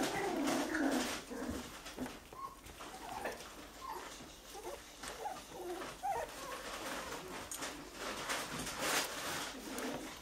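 Three-week-old miniature schnauzer puppies making short whimpers and squeaks while they eat from food bowls, with scattered smacking and rustling noises in between.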